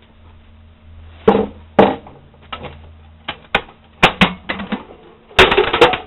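Irregular knocks and rattling clatter of metal parts being handled and set down, sparse at first and coming thick and fast near the end.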